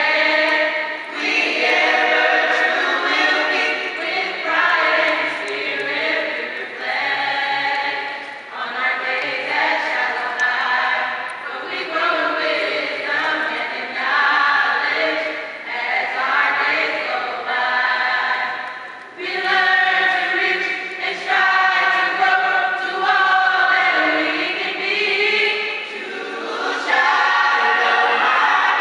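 High school chorus singing together, phrase after phrase, with a short break about two-thirds of the way through.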